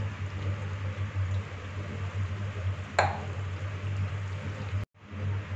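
Egg-and-vegetable omelette mixture sizzling in oil in a non-stick frying pan over a low gas flame: a steady hiss with a low hum beneath. A single sharp clink about three seconds in, and the sound cuts out briefly near the end.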